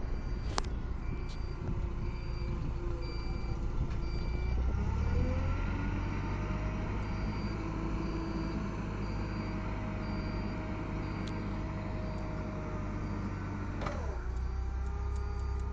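LPG forklift engine running; its revs rise about five seconds in and hold while the mast is raised, then drop back sharply near the end. A warning beeper pulses about twice a second throughout.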